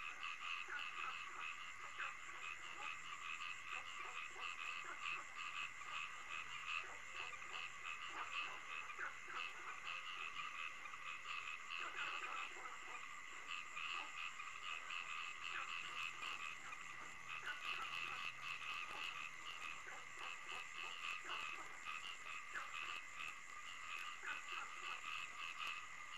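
Dense night chorus of frogs calling, a steady mass of rapid, overlapping croaks with no pause.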